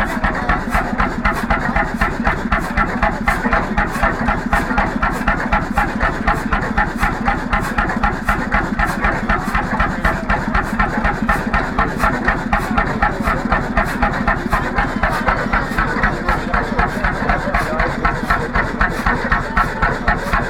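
1943 Bjørnevik 20 hp single-cylinder semi-diesel (hot-bulb) engine running steadily, with an even exhaust beat of about two firings a second.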